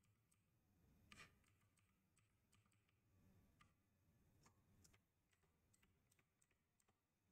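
Faint computer keyboard typing: scattered soft key clicks at an irregular pace, one a little louder about a second in.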